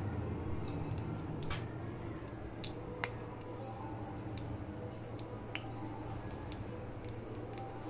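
Ghee heating in a kadai with mashed potato, giving faint crackling and scattered small pops and clicks over a steady low hum.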